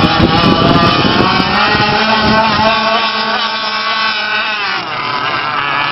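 Radio-controlled model boat's motor running at high revs, a high whine whose pitch wavers, sags briefly about two-thirds of the way through and then climbs again.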